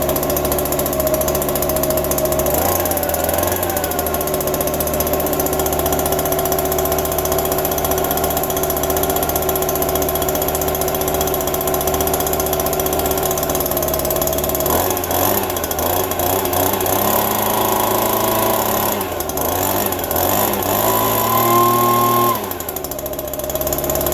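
Small two-stroke engine of a yard tool running just after a cold start. It holds a steady speed for most of the time, then its pitch shifts up and down in the later part and drops back near the end.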